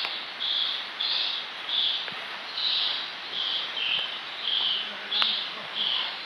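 A high-pitched animal call repeated about twice a second, each note short and slightly uneven in pitch, over a steady background hiss, with a couple of faint knocks.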